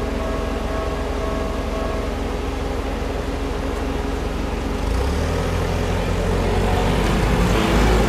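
Railroad crossing warning bell ringing, stopping about two seconds in as the barrier lifts, over the low rumble of vehicle engines. From about five seconds a small box truck's engine comes in close as it drives over the crossing, growing louder toward the end.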